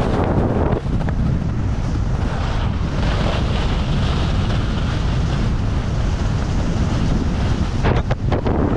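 Heavy wind buffeting on a moving camera's microphone, a loud steady rumble with a broad hiss over it that is strongest midway, and a few short sharp knocks near the end.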